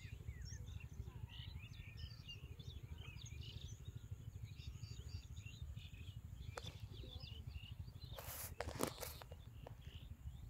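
Small birds chirping in many short, scattered calls over a steady low background noise, with a couple of brief knocks or rustles about eight to nine seconds in.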